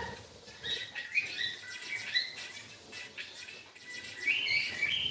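Pet cockatiel chirping: short, high chirps in small groups, about a second in, around two seconds in and again near the end.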